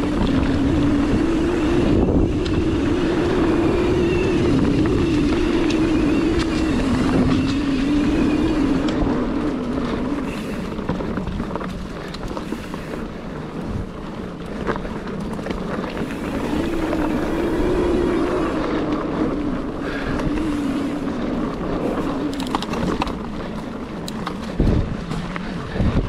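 Ibis Ripley mountain bike rolling fast down dirt singletrack: knobby tyres making a wavering hum on the hardpack, with wind rushing over the microphone. A few sharp knocks from bumps come near the end.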